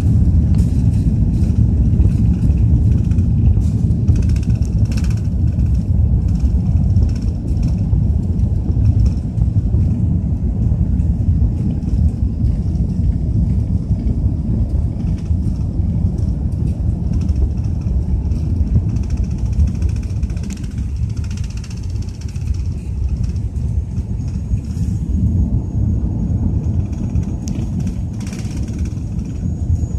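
Steady low cabin rumble of an Airbus A380-800 taxiing: the engines at low thrust and the landing gear rolling over the taxiway. A faint thin high whine joins it near the end.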